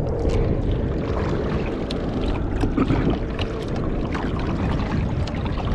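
Water splashing and lapping against the hull of a pedal-drive kayak moving across choppy water, with steady wind rumble on the microphone.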